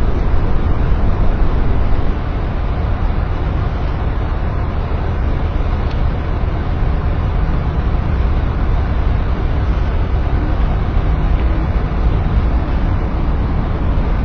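Steady, loud low rumble and rush of wind buffeting the microphone, with no distinct events. It dips slightly in level about two seconds in.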